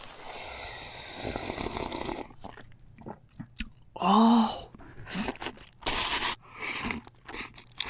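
Close-up crunchy biting and chewing of food, a string of sharp crackling crunches, after about two seconds of steady hiss. About four seconds in comes a short, loud hummed sound that rises and falls in pitch.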